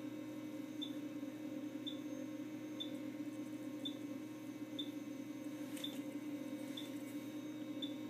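Handheld cold-laser therapy probe giving short high chirps about once a second, each pair of chirps marking one joule of dose delivered. A steady low hum runs underneath.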